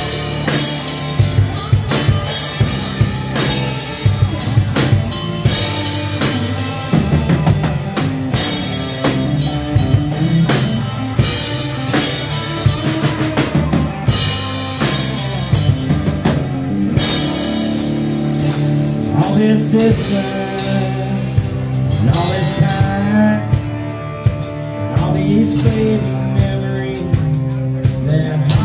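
Live band playing an instrumental break without singing: a drum kit keeping a steady beat under strummed acoustic guitar, electric guitar and bass guitar.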